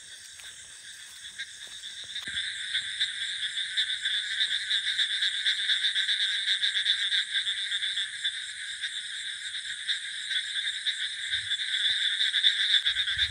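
Chorus of many frogs calling together, a dense, steady, fast-pulsing din that grows louder about two seconds in.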